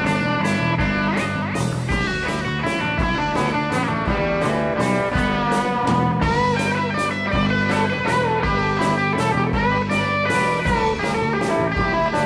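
Live rock trio playing an instrumental break with no singing: an electric guitar plays a lead line with bent notes over electric bass and a steady drum beat.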